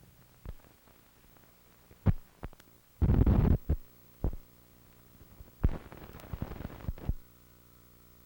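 Audio of an old videotape transfer after the programme ends: scattered sharp clicks, a loud burst of static about three seconds in, and a longer crackling patch of static around six to seven seconds, over a steady electrical hum that is left on its own near the end.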